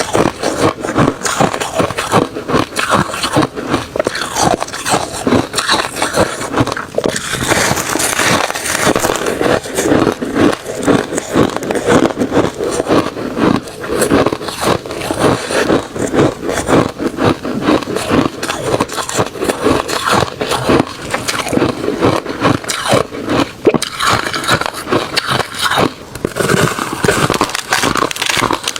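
Refrozen crushed ice and shaved ice crunching between the teeth, bitten and chewed in a continuous run of rapid, sharp crunches close to the microphone.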